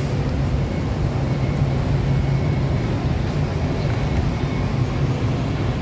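Minibus engine idling: a steady low rumble.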